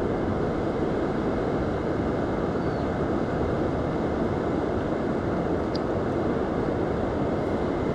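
Steady rushing noise of flowing river water and breaking surf, even and unchanging throughout.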